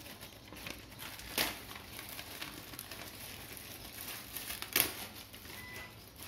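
Plastic packaging wrap crinkling and rustling as it is handled, with two short, louder rustles, about a second and a half in and again near five seconds.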